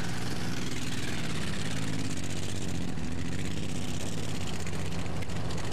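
A truck engine running steadily, with an even low hum.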